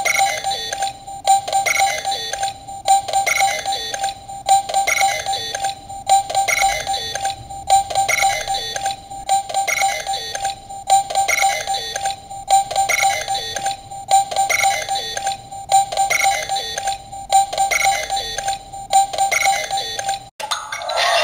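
Bandai DX Mega Ulorder toy bracelet playing its electronic standby sound on a loop: a short beeping, alarm-like phrase repeated over and over at an even pace. The loop cuts off abruptly near the end and a different, noisier sound begins.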